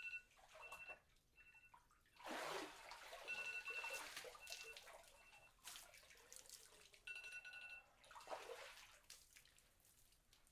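Faint splashing and sloshing of water as a person rises out of an ice-cold stock-tank plunge, then water dripping and pattering off the body onto paving.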